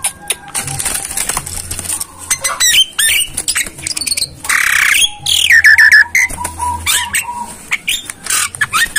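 Javan myna (jalak kebo) giving harsh squawks and rapid chattering calls with short whistles, with one loud harsh squawk about halfway through, and its wings flapping. The owner describes the bird as wanting to mate.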